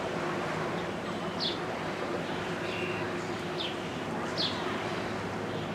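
A few short, high bird chirps, each sliding down in pitch, over a steady low drone from the diesel engines of a towboat pushing a string of barges.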